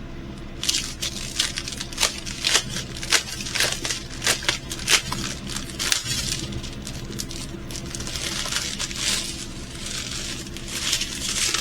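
Small plastic bags of diamond-painting drills crinkling and rustling as they are handled, with many short sharp clicks and a denser stretch of rustling near the end.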